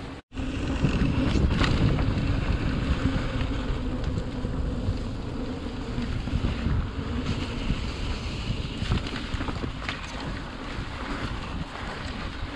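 Wind buffeting the camera microphone and a mountain bike's tyres rumbling over a dirt trail as it rides along, with a few sharp clicks and rattles from bumps.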